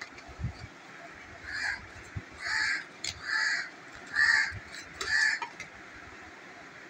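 A bird outside calling five times, short calls a little under a second apart, beginning about a second and a half in.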